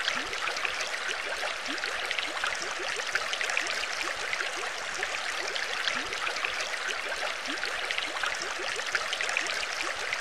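Underwater-ambience sound effect: steady bubbling, trickling water with many small bubble pops.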